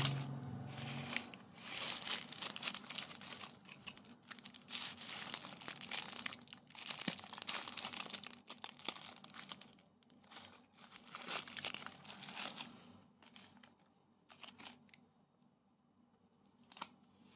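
Thin plastic wrapper of a military dry-ration biscuit bar crinkling and tearing in the hands, in irregular crackly bursts. It dies away about thirteen seconds in, leaving a few light clicks.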